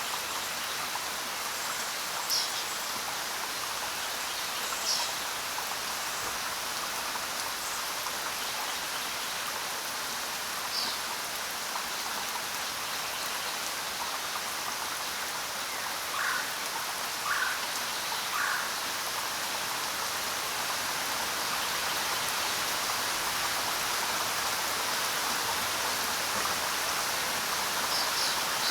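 Steady rain falling on the ground, an even hiss of drops. A few brief chirps stand out over it, three of them about a second apart past the middle.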